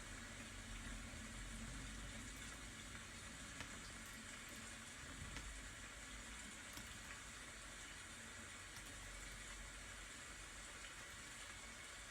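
Rain falling steadily, a soft even hiss with a few faint scattered ticks.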